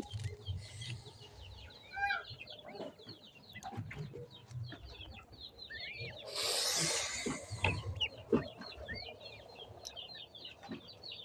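A brood of young birds, likely the little swans (cygnets), peeping continuously in many short high chirps, with some clucking. A brief rustling burst comes about six seconds in.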